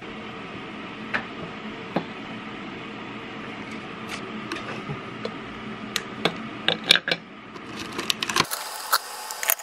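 Light clicks and taps as a tin of wafer rolls is handled and the rolls are set down on a ceramic plate, over a steady hum, with a quick cluster of sharper taps about six to seven seconds in. Near the end the hum gives way to a steady hiss.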